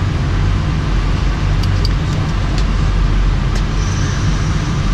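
Steady cockpit background noise of a parked Airbus A319: rushing air from the air-conditioning and ventilation over a low hum, with a few faint clicks.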